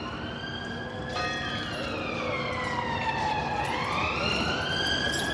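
Emergency vehicle siren wailing in slow rising and falling sweeps, growing louder.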